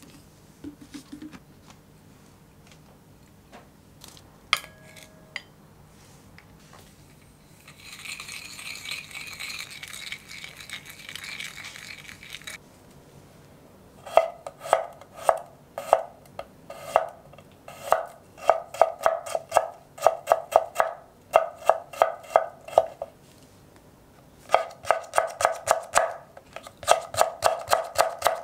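Chef's knife slicing garlic cloves, then red and green chilies, on a wooden cutting board: runs of quick, regular chopping strokes that start about halfway through, pause briefly, then resume. Before that, a few faint clicks and a few seconds of soft scraping.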